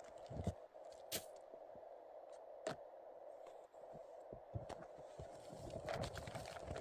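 Scattered crunching footsteps and small knocks and scrapes in snow, irregular and close by, with a faint steady hum underneath.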